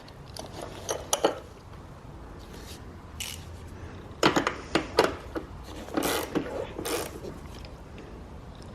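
Ratchet wrench clicking in a few short spells while tightening the 13 mm bolt of the battery hold-down bracket.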